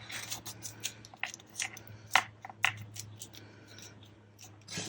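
Paper and acetate craft pieces being handled and pressed onto a tag: scattered rustles and light taps, the loudest about two seconds in, over a faint steady hum.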